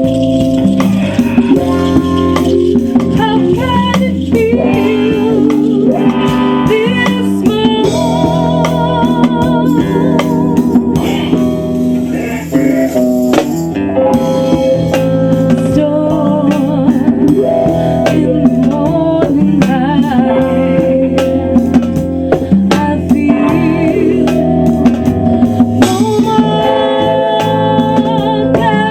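Music: a band playing with guitar, drums and singing.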